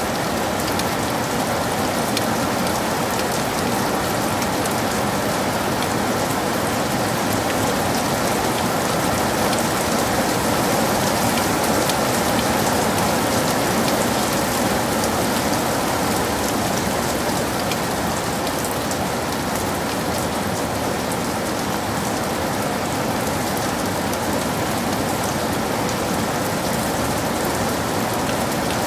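Heavy rain falling steadily on a forest, a dense even hiss of drops with fine pattering ticks throughout.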